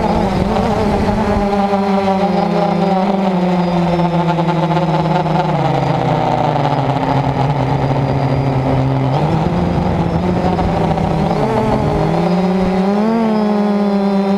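DJI F450 quadcopter's four brushless motors and propellers whining, heard up close from a camera on the airframe. The pitch drops and holds lower for a few seconds about halfway, then climbs again, with a short dip and rise near the end as the throttle changes.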